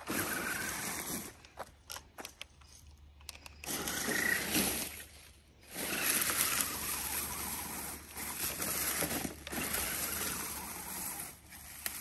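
Laegendary Grando 1:10 RC crawler driving in stop-start bursts through grass: its brushed electric motor and gears running, with the tires and body brushing and scraping through the grass. The battery is running low.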